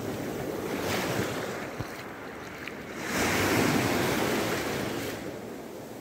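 Small Mediterranean waves breaking at the shoreline and washing over fine pebbles, in two surges, the second one louder about three seconds in.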